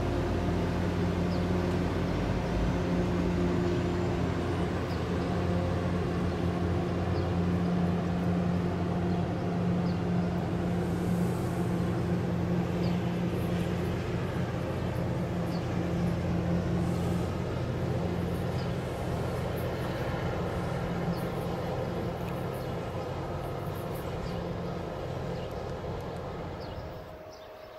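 Diesel locomotive engine running steadily with a low, even hum, easing off gradually and then dropping away sharply near the end.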